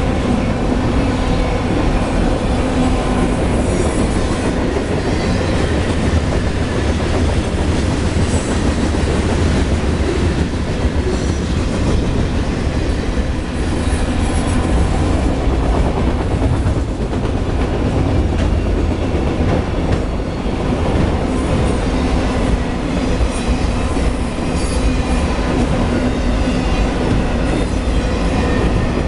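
Freight train cars (autoracks and boxcars) rolling past close by: a steady heavy rumble with wheels clattering over the rails and brief high wheel squeals now and then.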